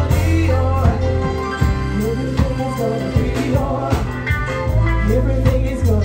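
Music with a singing voice over heavy, sustained bass notes and a regular drum beat.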